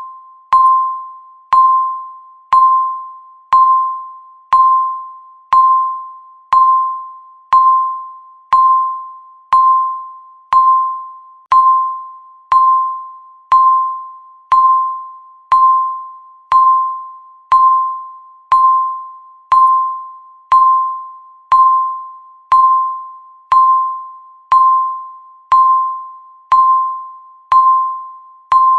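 Countdown timer's electronic tick sounding once every second: a short, bell-like ding that dies away quickly, repeating evenly.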